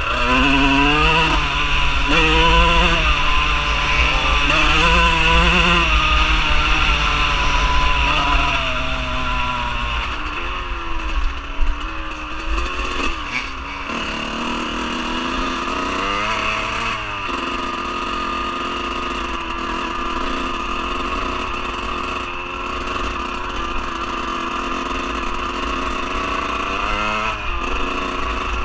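Dirt bike engine heard up close from the rider's own bike, revving up and shifting through the gears, its pitch climbing and dropping several times over the first ten seconds. It then settles to a lower, steadier running speed, with short throttle blips about two-thirds of the way in and near the end.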